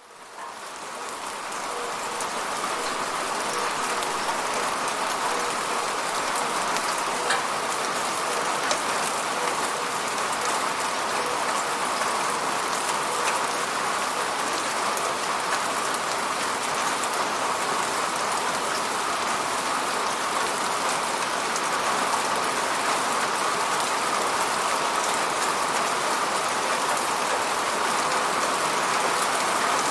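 Steady falling rain, a dense even patter with scattered individual drop ticks. It fades up from silence over the first couple of seconds, then holds steady.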